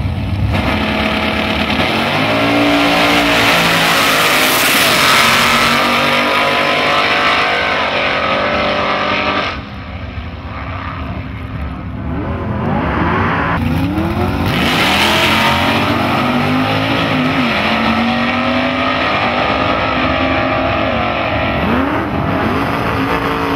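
Two separate drag runs by pairs of gasser drag cars, their engines at full throttle. The engine pitch climbs and drops back again and again as the cars pull away and shift, with a break in the sound about ten seconds in before the second run.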